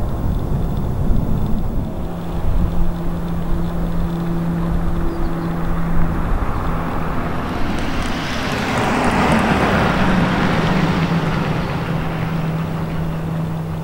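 Outdoor engine and traffic noise with wind rumbling on the microphone. A steady low hum runs throughout, and a rushing noise swells and fades about ten seconds in.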